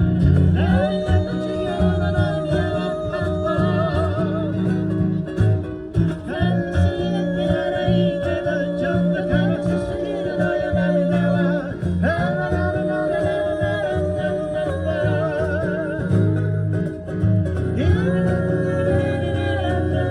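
Live acoustic cover of a pop song by a three-piece group: guitar chords under long held melody notes with vibrato, phrases about six seconds long with short breaks between them.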